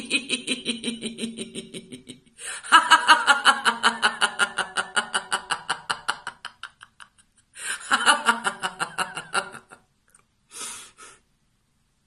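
A woman laughing heartily in long bouts of quick, evenly pulsed 'ha-ha-ha', with short breaths between bouts and a brief last burst near the end: deliberate laughter-yoga laughter.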